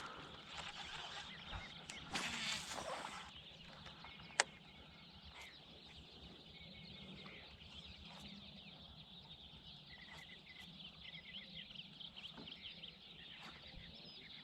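Birds chirping faintly in the background, with a brief rush of noise about two seconds in and a single sharp click about four seconds in.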